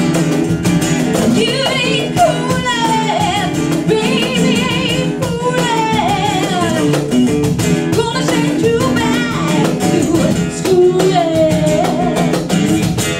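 Live band music: a woman sings a melody into a microphone over acoustic guitar and percussion, her voice coming in about a second in.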